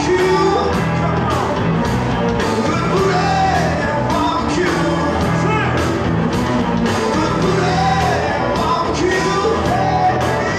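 A blues band playing live: electric guitars, electric bass and drums keeping a steady beat, with a bending melodic line over the top.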